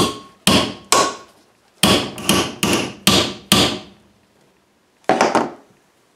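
Hammer blows on a thin metal strip clamped in a bench vise, bending it over the jaw: eight quick strikes, then a last one after a short pause. Each blow gives a sharp metallic smack with a brief ring.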